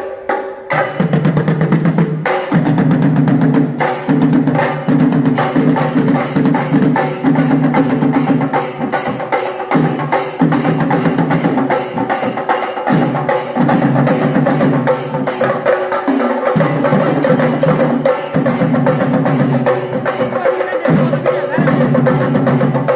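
Kerala-style background music driven by fast, dense drumming, with a strong low tone that pulses in and out.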